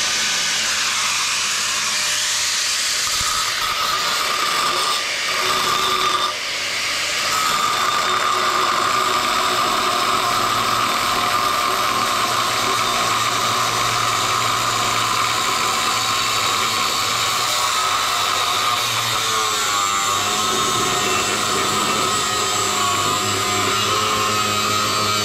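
Angle grinder with a new cutting disc cutting through the steel shell of a refrigerator compressor: a loud, steady high whine with grinding, which dips briefly about six seconds in.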